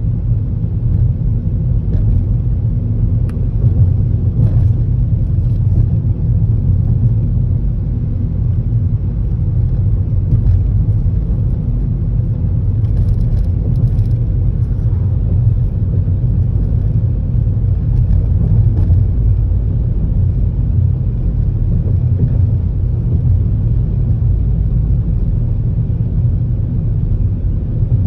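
Steady low rumble of a car driving, heard from inside the cabin: tyre and road noise with the engine underneath.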